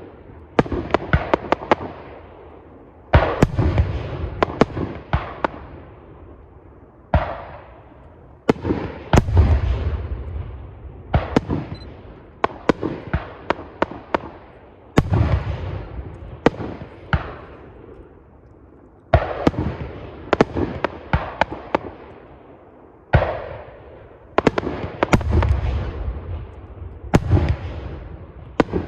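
Aerial firework shells bursting one after another, each heavy boom every two to four seconds followed by a rapid cluster of sharp cracks and a dying rumble.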